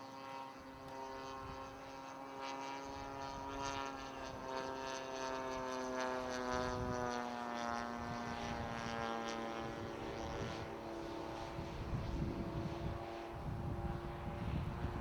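Radio-controlled model airplane's propeller engine droning in flight, a steady buzzing note whose pitch slowly drifts downward and shifts as the plane moves about.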